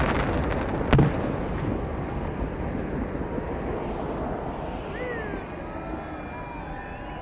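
Aerial fireworks: one sharp bang about a second in, then a rumbling echo that slowly fades away.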